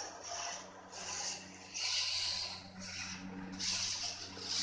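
Low steady hum of a Kubota tractor engine driving a cotton shredder, under repeated bursts of rasping, rustling noise about once a second.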